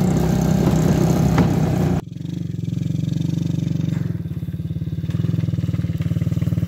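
A 125cc ATV's engine running. About two seconds in, the sound drops abruptly to a steady idle with even, rapid pulses.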